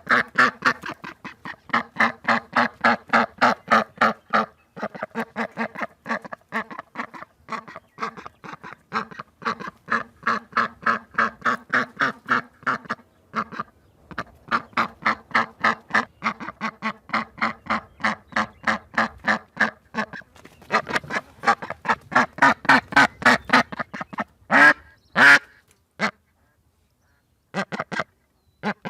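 Duck quacking in long rapid runs of about five quacks a second, with a few short breaks. Near the end come two louder, longer calls, then a brief pause before the quacking starts again.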